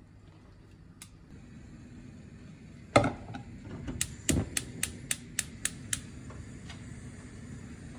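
A pan set down on a gas stove's burner grate with a knock, then the stove's spark igniter clicking rapidly, about four clicks a second for two seconds, followed by a steady hiss of the lit gas burner.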